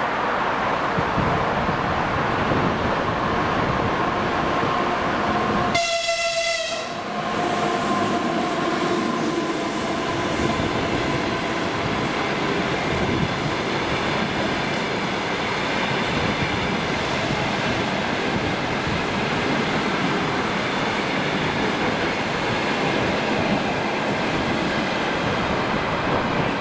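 EP2K DC electric locomotive and express passenger coaches running past at speed, with a steady rolling noise of wheels on rail. About six seconds in, a short horn blast of roughly a second sounds over it.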